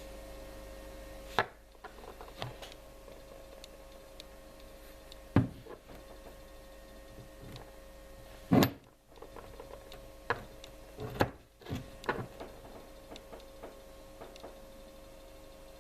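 Steady electrical hum of a CNC milling machine standing by, with irregular sharp clicks and knocks, the loudest about five, eight and a half and eleven seconds in.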